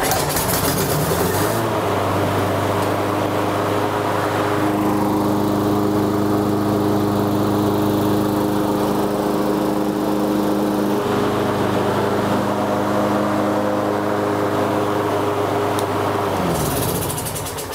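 Husqvarna push mower's single-cylinder engine starting up and running steadily at about 3200 rpm, no longer dying now that its missing governor spring has been replaced. Near the end it winds down as it is shut off.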